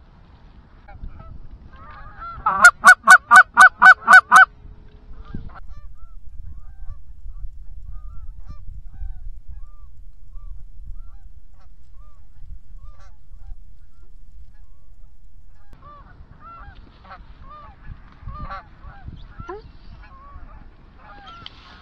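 A hand-blown goose call sounds a fast, very loud run of about eight even clucks about two seconds in. A steady low rush of wind noise follows for about ten seconds. In the last few seconds wild geese honk, fainter and irregular.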